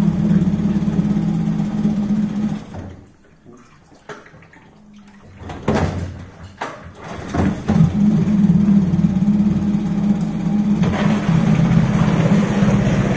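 Suzuki DF 9.9BS two-cylinder four-stroke outboard motor running steadily at low revs during a test run. About three seconds in it goes quiet, a few knocks follow, and from about eight seconds in it is running steadily again.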